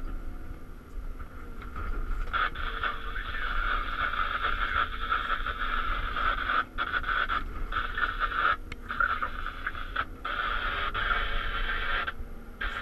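Caterpillar 323 hydraulic excavator at work, heard from inside its cab. The diesel engine gives a steady low rumble under a loud rushing, scraping noise that comes and goes as the boom and bucket dig into rocky ground. The rushing noise is weak for the first two seconds, then cuts out briefly a few times.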